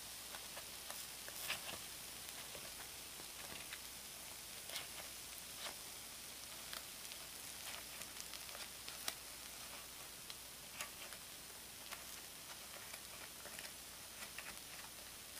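Takoyaki sizzling gently in the wells of a Nichinen takoyaki plate, with scattered light clicks and scrapes of bamboo skewers against the plate as the balls are turned.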